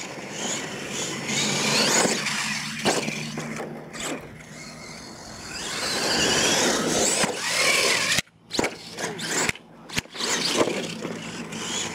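R/C monster truck's motor and gears whining, rising and falling in pitch as it accelerates and slows, with its tyres scrabbling on loose dirt. The sound cuts out briefly twice near the end.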